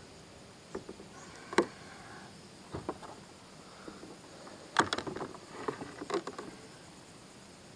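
Hollow knocks and clatter of a kayak paddle against the plastic kayak hull and gear as it is lifted and laid across the boat. There is one sharp knock about a second and a half in, and a cluster of knocks around five to six seconds.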